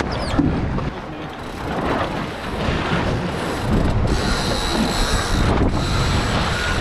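Wind and water rush aboard a Flying Dutchman racing dinghy, with the clicking and whirring of sheets running through ratchet blocks as the genoa is trimmed in for a mark rounding. A steady high whine sounds for about a second and a half a little past the middle.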